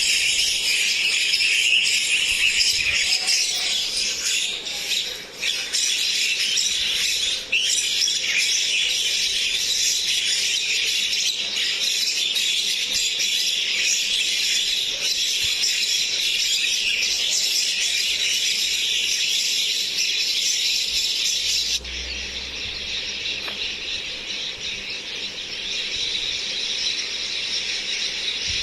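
Mynas chattering and squealing in a dense, continuous high-pitched din. About 22 s in it cuts abruptly to a somewhat quieter stretch of the same chatter.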